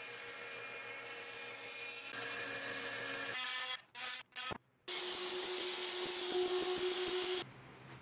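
Power tools running in quick edited clips: a CNC router running steadily, then after a few abrupt cuts an oscillating multi-tool buzzing steadily as it cuts plywood, stopping near the end and leaving faint room noise.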